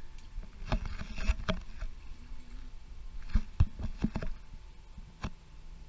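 Bare feet on a wet pool deck and stepping down into shallow pool water: an irregular series of soft knocks and small splashes.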